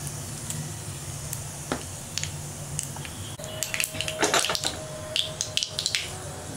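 Mustard and cumin seeds spluttering in hot oil in a small pan as a tempering fries, with scattered sharp pops that come thicker about three and a half seconds in, over a low steady hum.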